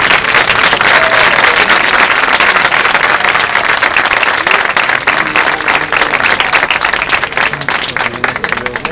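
Audience applauding: a crowd's dense clapping that holds steady and thins out near the end, following the end of a wind band piece.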